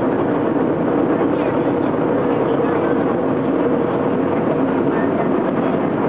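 Airliner cabin noise: a steady, unbroken drone of engines and rushing air, with faint voices of passengers mixed in.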